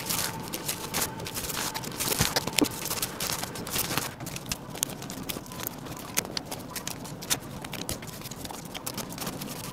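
Dense, irregular clicking and rustling of packing by hand: bagged 3D-printed sander holders and dumbbells being handled and fitted into a shipping box.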